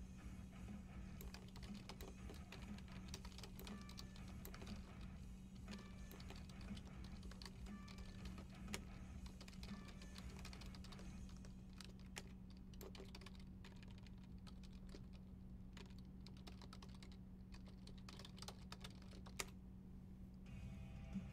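Typing on a computer keyboard: irregular runs of soft key clicks, over a low steady electrical hum.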